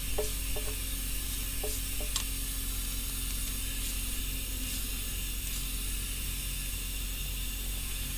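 A few light metallic clicks from small parts and a tool being handled on a diesel engine's open cylinder head, mostly in the first two seconds, over a steady hiss and low hum.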